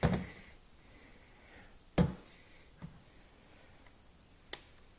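A few hard knocks and clicks as a portable LED work light is handled and set in place: a knock at the start, a sharper, louder one about two seconds in, a faint one just after, and a short sharp click near the end.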